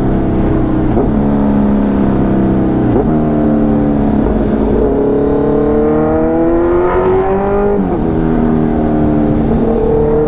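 Kawasaki motorcycle engine running very loud through its exhaust with the dB killer removed, heard from the rider's seat. Its pitch climbs steadily while accelerating and drops sharply each time the throttle is rolled off, several times over.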